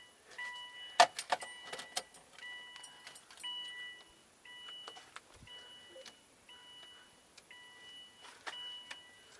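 Subaru Baja's dashboard warning chime beeping steadily about once a second, right after the ignition key is turned off. A sharp click about a second in, with lighter clicks and key jingles.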